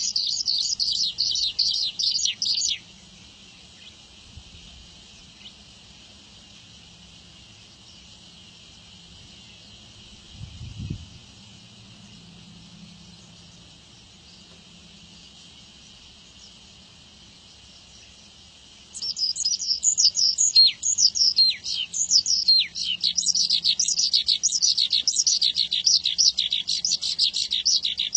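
Javan bushlark (branjangan) singing a fast, dense run of high chirps and short falling trills. It stops after about three seconds, is silent for roughly sixteen seconds apart from a faint low thump near the middle, then bursts back into song for the last nine seconds.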